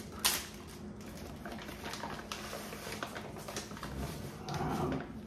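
Plastic packaging rustling and crinkling as hands work inside a bag of protein powder, with a sharp crackle just after the start and a louder rustle near the end.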